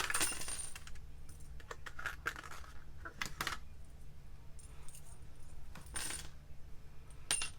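Small charms for a charm stapler clinking against each other as their pack is handled, with scattered light clicks and rustles.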